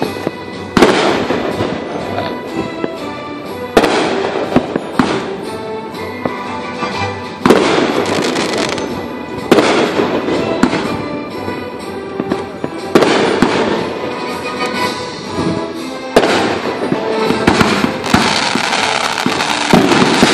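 Aerial fireworks shells bursting, about seven loud booms a few seconds apart, each followed by a trailing crackle, with smaller pops and crackling filling the gaps.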